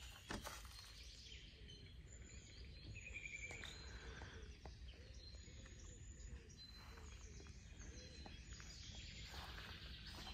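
Faint birdsong: scattered chirps, a short trill about three seconds in, and a run of soft repeated calls in the middle, over a low steady rumble. A soft knock sounds just after the start.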